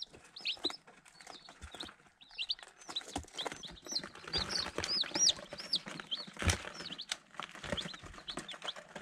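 A brood of young Icelandic chicks peeping: many short, high chirps overlapping, busier after a couple of seconds, with scattered light taps and rustles as they peck and scratch on newspaper around a feed plate.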